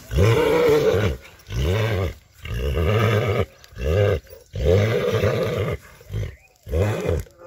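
A sexually aroused stallion giving a run of loud, deep, rumbling grunting calls, roughly one a second, each rising and then falling in pitch.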